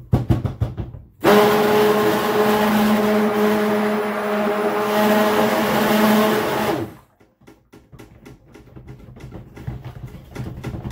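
Handheld stick blender running steadily in a tub of cold process soap batter for about five and a half seconds, starting about a second in and cutting off abruptly. It is mixing the oils and lye solution to a light emulsion. Light knocking comes before and after the burst.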